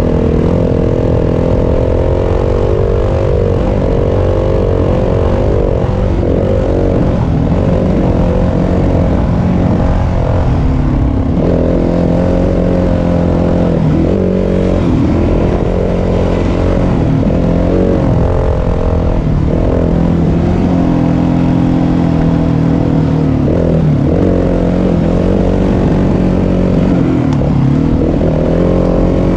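Yamaha WR250F's four-stroke single-cylinder engine running under load, its pitch dipping and climbing again every few seconds as the throttle is rolled off and back on.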